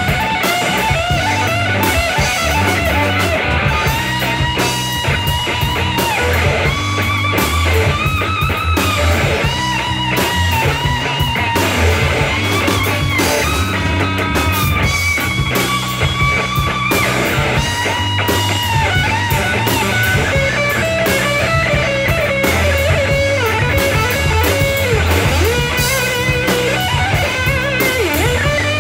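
Live blues-rock band: an electric guitar plays a lead solo full of string bends and vibrato, over drums and a bass line.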